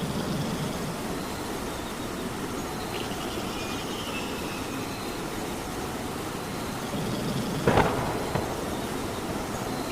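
Steady rain falling, with a single sudden loud crack near the end.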